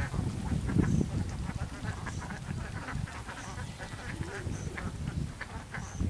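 Birds calling, including a short high note that repeats about once a second, over a steady low rumbling noise.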